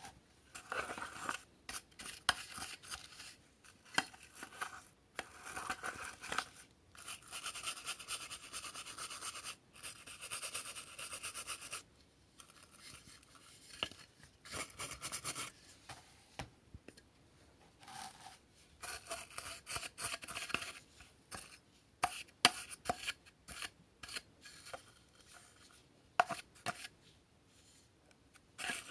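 Hands handling and cleaning plastic cordless-vacuum parts: irregular scraping and rubbing strokes with many sharp clicks and knocks.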